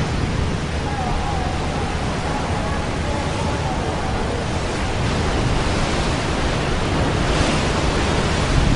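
Tsunami floodwater rushing, a steady, even wash of noise with no breaks.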